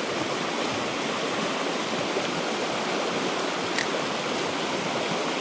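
Fast mountain stream rushing over rocky rapids: a steady, even rush of white water.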